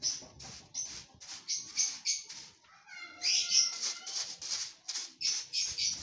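A hand broom sweeping dirt across a concrete floor in quick strokes, about three or four a second. About halfway through, a short, loud animal cry.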